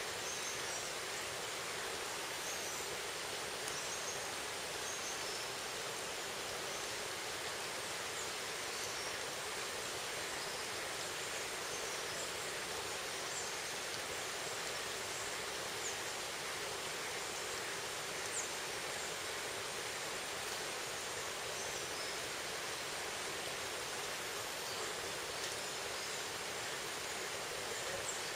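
Steady rush of a shallow rocky forest stream, with a few faint high chirps here and there.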